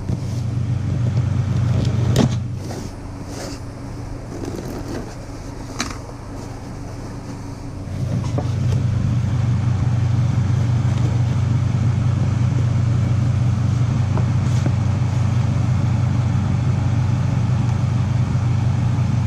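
Cardboard mailer box being opened and handled, with a few sharp clicks and knocks in the first several seconds, over a steady low hum that grows louder about eight seconds in.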